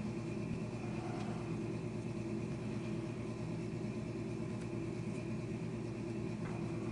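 Steady mechanical hum of a running motor, even and unchanging, with a couple of faint ticks.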